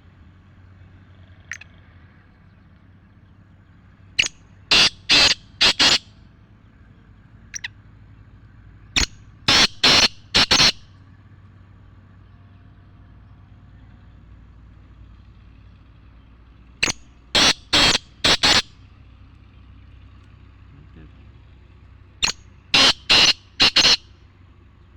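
Black francolin (mushki teetar) calling: four loud, harsh call series of several sharp notes each, repeated about every five to six seconds, with two faint short rising chirps in between.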